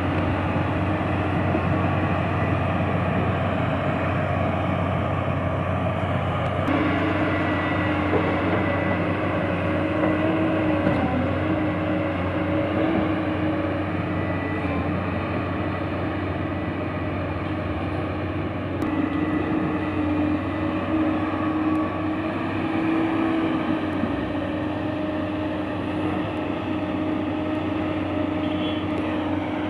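Diesel engine of an excavator running steadily under work, a continuous mechanical hum whose tone shifts abruptly twice.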